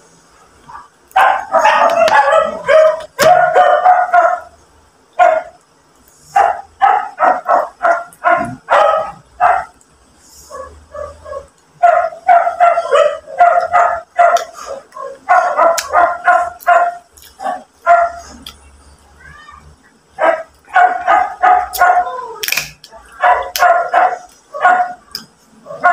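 A dog barking and yipping in quick runs of short, high barks, with brief pauses between the runs.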